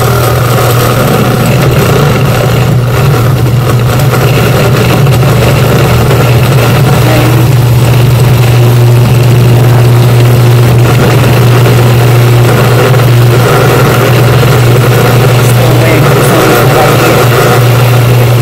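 Old countertop blender running continuously with a steady low motor hum, pureeing a thick mash of peppers, onions, cilantro and garlic.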